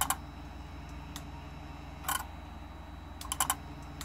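A relay in a Mercedes E320 throttle control module clicking as power is switched on and off: a few short clicks near the start, one about two seconds in, and a quick cluster near the end. The relay tries to activate the throttle body, which does not move, a sign of the faulty module.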